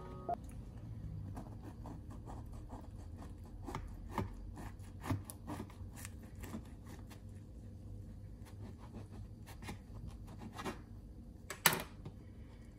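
Knife sawing through a crusty baguette sandwich on a wooden cutting board, the crust crackling in many small crisp crunches. There is a sharper knock near the end.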